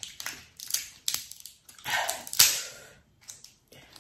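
Cooked lobster tail shell being cracked and pulled apart by hand: a run of crackling snaps, the loudest about two and a half seconds in.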